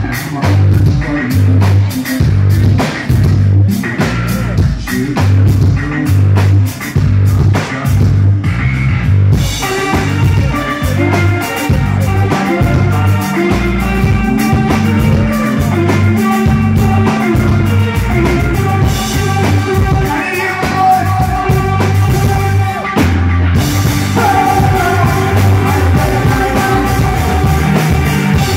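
Live rock band playing loud through a club PA: drum kit with a pounding kick drum and electric guitars. About nine seconds in the music fills out with sustained guitar chords over the beat.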